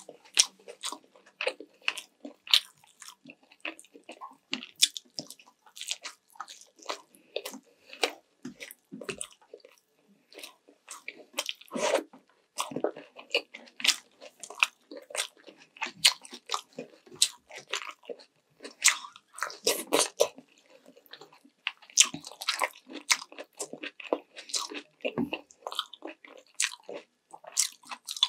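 Close-miked mouth sounds of a person eating sweet and sour chicken with rice: chewing, biting and wet smacking, a dense irregular run of clicks, several a second.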